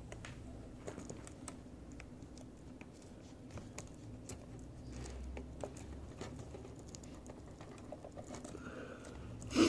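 Scattered light clicks and taps of hands handling a laptop's replacement LCD panel and pressing its display cable connector into place, with one louder knock near the end.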